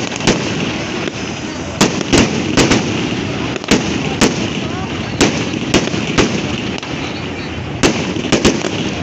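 Large wood bonfire crackling: a steady rush of flame with a dozen or so sharp, irregular pops and cracks from the burning wood. Voices murmur underneath.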